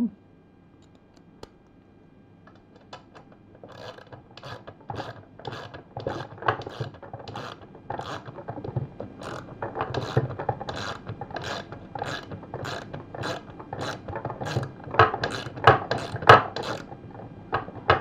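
Small socket ratchet clicking in a steady run of strokes, a couple of clicks a second, as an 8mm socket runs a nylock nut down onto a wheel axle. It starts about three seconds in and grows louder near the end as the nut snugs up.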